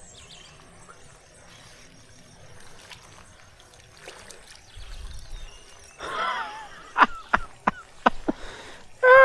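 Quiet outdoor background with a faint trickle of water. From about two-thirds of the way in come a run of short, sharp bird chirps. A loud rooster crow starts right at the end.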